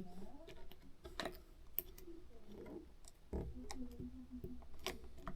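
Scattered small clicks and taps of fingers and tools working an iPod's ribbon cable into its connector, irregular and a few per second at most.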